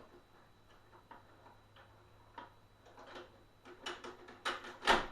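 Irregular clicks and light knocks from the plastic parts of a partly dismantled Hoover SteamVac being handled. The clicks come closer together in the second half, with one sharper knock just before the end.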